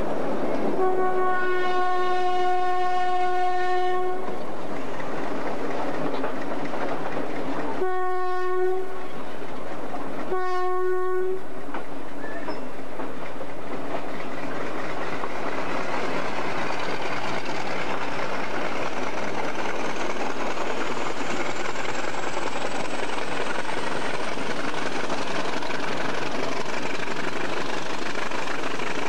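Horn of a General Electric U12 diesel locomotive sounding one long blast and then two short blasts, a single steady note. Under it runs the steady rumble and wheel clatter of the moving train, heard from a passenger coach.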